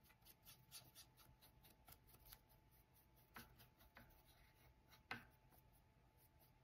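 Faint, quick scratchy strokes of a paintbrush working stain onto a wooden cutout, with a few sharper taps in the second half.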